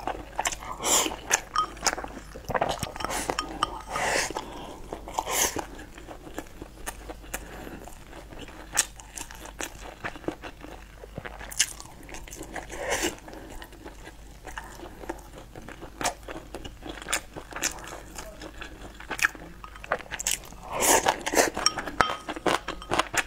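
Close-miked eating sounds: a person chewing and biting mouthfuls of rice in irregular bursts, with sharp clicks of chopsticks against a ceramic bowl.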